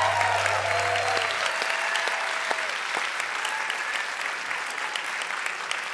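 Theatre audience applauding at the end of a song, dense clapping with a few cheers in the first couple of seconds, slowly easing off. A low held note from the band fades out about a second and a half in.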